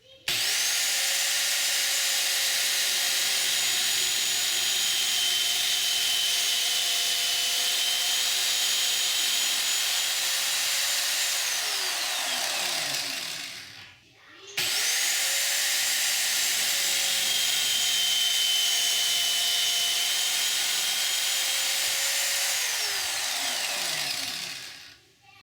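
Electric drill mounted in a drill stand, run twice: each time the motor spins up quickly, holds a steady whine for about eleven seconds, then winds down as it is released.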